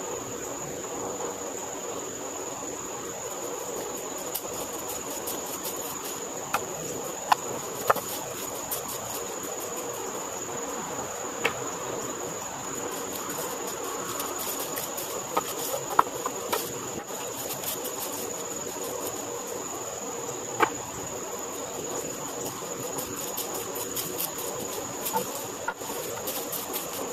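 Steady high insect chorus, a continuous shrill drone with fast flickering pulses, with scattered sharp clicks and knocks, a few of them louder than the drone.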